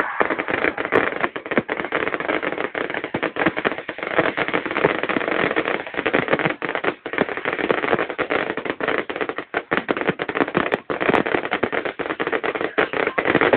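Fireworks going off in a dense, continuous run of crackling and popping, many small bangs close together.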